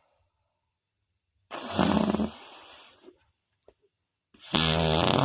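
Two imitation fart sounds made with a person's mouth: a raspy one about a second and a half long, starting about a second and a half in, and a second that starts near the end.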